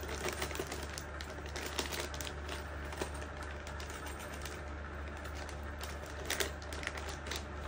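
Faint scattered small clicks and taps of costume jewellery (necklace and earring pieces) being handled, with a few sharper clicks, over a steady low hum.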